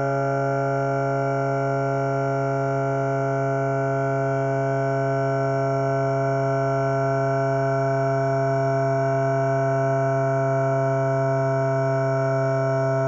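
The 'bruh' meme voice clip time-stretched into a steady, unchanging drone of several held tones, with no breaks or changes in level.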